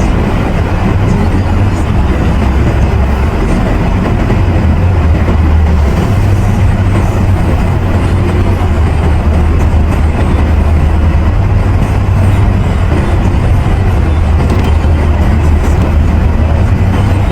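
Steady road noise inside a moving car: a loud, low rumble with an even hiss above it.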